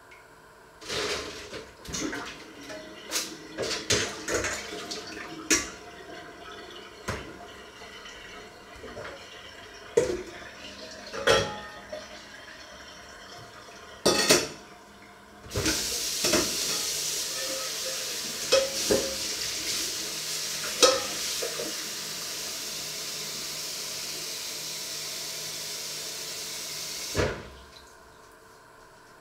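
Dishes clinking and knocking at a kitchen sink, then a kitchen tap runs steadily into an enamel bowl for about twelve seconds and is shut off with a knock.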